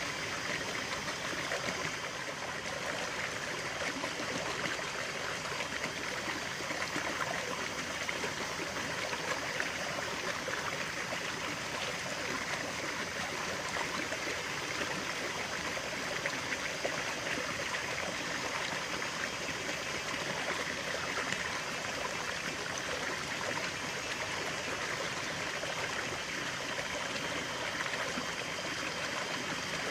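A stream running steadily over stones, an even babbling and trickling of water.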